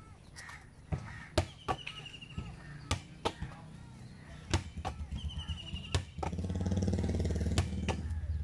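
A rubber ball thrown against a wall and caught, giving sharp thuds and slaps every second or two. Over the second half a passing motor vehicle's engine hum rises and is the loudest sound, and a short high trill repeats now and then.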